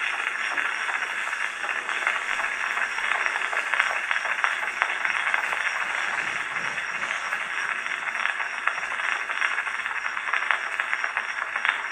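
Surface noise from a 1914 Edison Blue Amberol cylinder on an Edison Fireside phonograph with Model K reproducer and Cygnet horn: a steady hiss with fine crackle as the stylus runs in the groove before the music.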